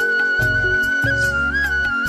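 Background music: a flute-like melody holding a long high note with a small ornament, over a steady bass and plucked accompaniment.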